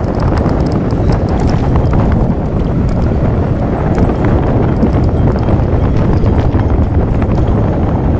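Wind rumbling on the microphone of a camera riding on a road bike at speed, with a steady clatter of small knocks and rattles from the mount over the road surface.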